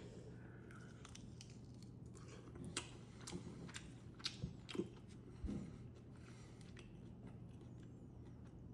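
Faint chewing and biting into a sauced chicken wing, with a few short crunches and clicks between about three and six seconds in.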